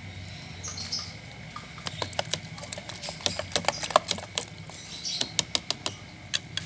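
Hot cooking oil crackling and popping in the cups of a cast-iron ball-mould pan as it heats. The pops are irregular and sharp and come thickly from about two seconds in, over a steady low hum.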